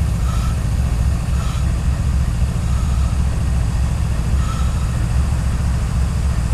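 CSX GE diesel-electric freight locomotives moving past, their engines giving a loud, steady deep rumble, with faint brief higher-pitched sounds every second or so.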